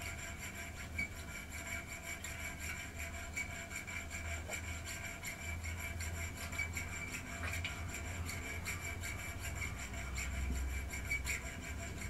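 Round chainsaw file (5/32 in) stroked back and forth across the steel of a folding-knife blade clamped in a vise: a steady run of rasping file strokes, cutting a small notch so the blade will fold.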